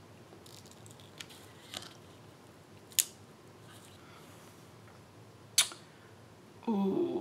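Light taps and rustles of a sheet of adhesive clear faceted gems being handled and gems picked off it, with two sharper plastic clicks a few seconds apart.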